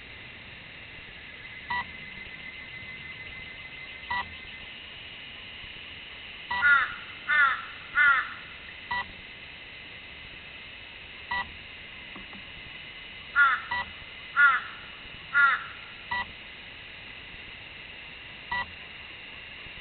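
A crow cawing in two runs of three falling caws, the loudest sound here. Throughout, a short electronic beep repeats about every two and a half seconds over a faint steady high drone.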